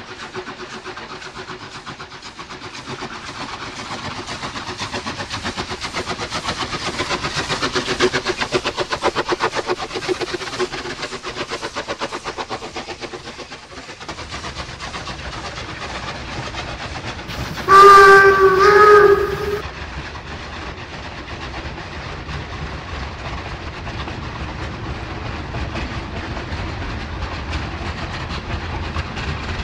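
Double-headed steam locomotives working hard on a freight train, their fast exhaust beats growing louder over the first several seconds. About halfway through, a chime steam whistle sounds for about two seconds, and the loaded freight wagons then rumble and clatter past on the rails.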